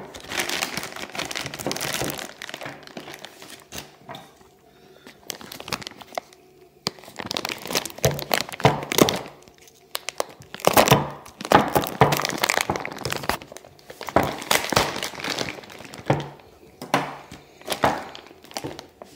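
Plastic wrapping and cardboard packaging crinkling and rustling in irregular bursts as they are handled, with occasional sharp cracks and knocks.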